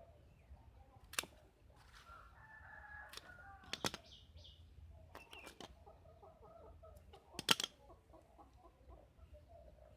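A rooster crows once in the background, starting about two seconds in, with faint hen clucking later on. Several sharp clicks and snaps from close by cut through it, the loudest about seven and a half seconds in.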